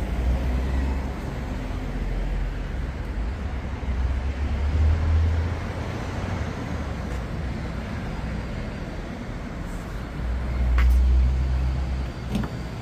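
Street traffic: cars passing slowly along a small-town main street, a steady rumble of engines and tyres that swells twice, with a few faint knocks.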